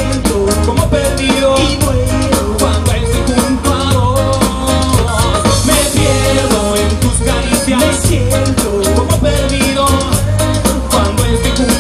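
Latin rock band playing live: a singer over drums, bass and keyboards, with a steady beat and a moving bass line.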